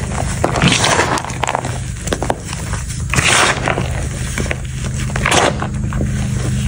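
Bare hands pressing, scooping and squeezing loose powdered gym chalk in a bowl: a series of short, crunching, crackly pushes through the powder, the loudest about three seconds and five and a half seconds in.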